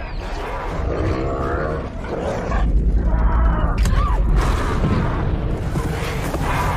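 Film sound design of dinosaur roars and growls over a deep, continuous rumble that is heaviest in the middle.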